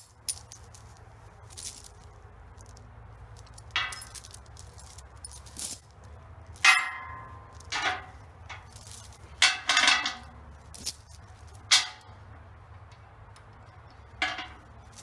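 Metal chain being handled and laid into a rusty steel forge trough, its links clinking and clanking against the metal. The rattles come in separate bouts a second or two apart.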